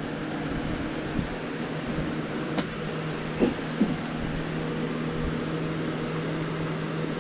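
Steady hum of an electric box fan running, with a few faint light clicks about two and a half to four seconds in.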